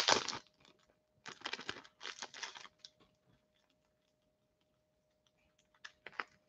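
Light clicking and crinkling handling noises in short bursts, the loudest right at the start, a cluster of them a second or so later, and a brief one near the end.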